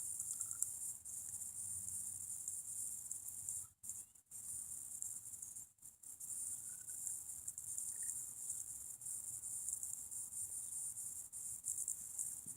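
Crickets trilling steadily in a high, shimmering chorus, cutting out briefly twice near the middle.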